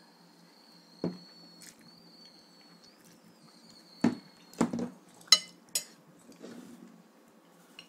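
Tableware knocking and clinking during a meal: a handful of separate sharp knocks, the loudest about five seconds in.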